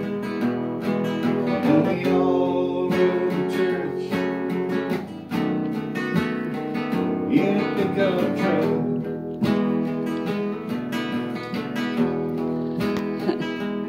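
Classical nylon-string guitar strummed in a slow, steady rhythm, playing an instrumental passage of chords.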